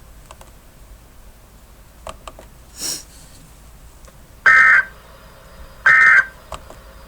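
Emergency Alert System end-of-message data bursts: two short, loud, buzzy digital bursts about a second and a half apart, starting about four and a half seconds in, after a few faint clicks and a brief hiss.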